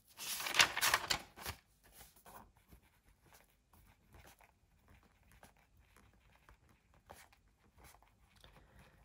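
Felt-tip pen writing on a notebook page: faint, irregular scratching strokes. In the first second and a half there is a louder rustle of hand and paper.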